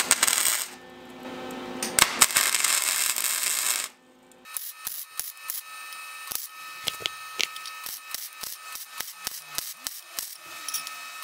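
Flux-core wire-feed welder arc sizzling as steel sheet is welded into a box. There is a loud, steady sizzle for about four seconds, then a brief break, then a quieter, irregular crackle.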